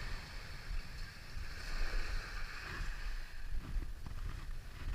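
Outdoor ambience dominated by wind buffeting the microphone: an uneven low rumble that rises and falls, over a faint hiss.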